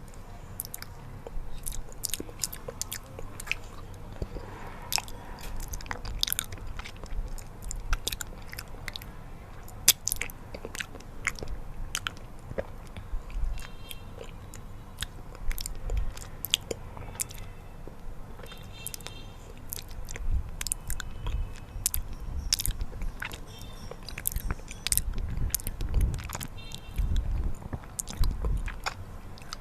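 Close-miked eating of honey: sticky chewing and biting with many sharp wet mouth clicks, and soft low thumps mostly in the second half, over a steady background hiss.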